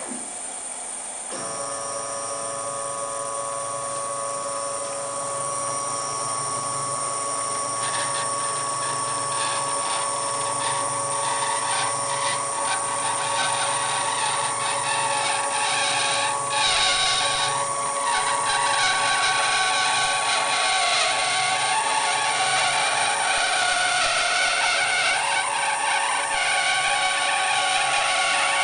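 Homemade CNC table's drive motors whining steadily once the gantry starts moving, about a second and a half in, while the marker in the torch holder scrapes noisily over slightly bowed plywood. The scratchy scraping is strongest in the middle of the run: the marker is being forced against the uneven board.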